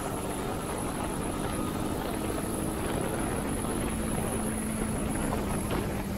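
Motorcycle engine running on the move under a steady rush of wind and road noise, its note climbing a little in the second half.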